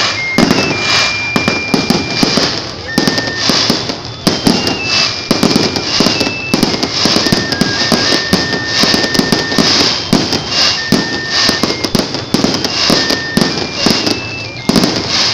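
Aerial fireworks bursting overhead in a rapid, unbroken string of bangs, several a second, over a steady high-pitched crackling hiss.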